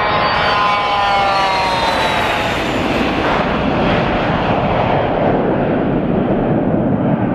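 Cessna Citation Latitude's twin turbofans at takeoff thrust as it rolls past and lifts off: a whine that falls in pitch as the jet passes, then steady engine noise whose high end fades as it climbs away.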